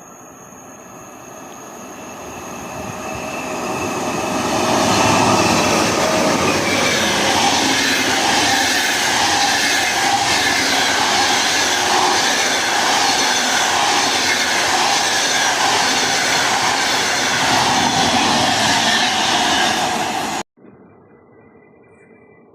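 A train running along the track: its rumble and rail noise build over about five seconds to a loud, steady rush of wheels on rail with a regular beat about once a second, then cut off suddenly near the end.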